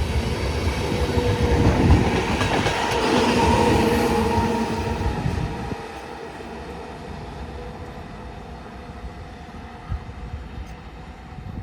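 Train passing on the tracks, loud with wheels clattering over the rails, then dropping away sharply about halfway through and fading.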